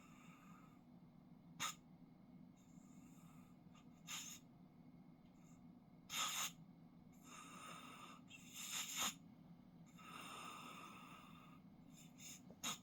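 A man snoring in his sleep, faintly: short sharp snorts every few seconds, with longer hissing breaths of about a second, over a steady low hum.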